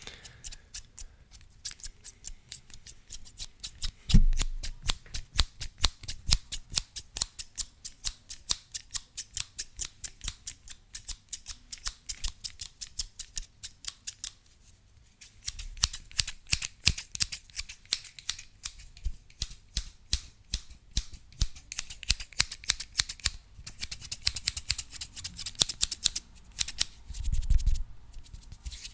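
Scissors snipping close to the microphone, a steady run of crisp metallic clicks at about three to four a second, pausing briefly halfway. A louder low thump comes a few seconds in and another near the end.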